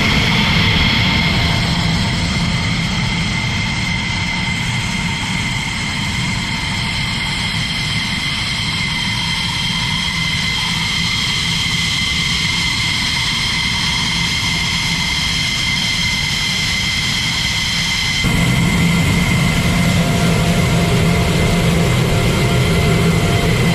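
F-16D Fighting Falcon jet engine running steadily: a high, steady whine over a low rumble. The sound jumps suddenly louder and fuller about 18 seconds in.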